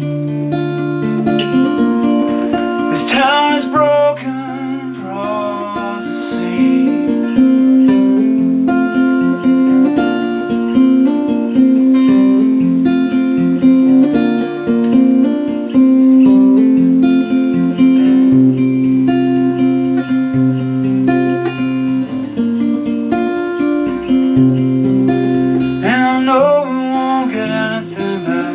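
Acoustic guitar playing an instrumental folk passage, sustained notes over a bass line that steps between low notes. Brief bits of voice come in about three seconds in and again near the end.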